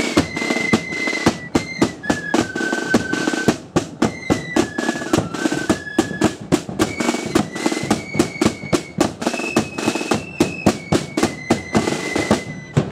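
Marching flute band playing a tune: flutes carry the melody in held notes over steady snare drum and bass drum beats at about four a second.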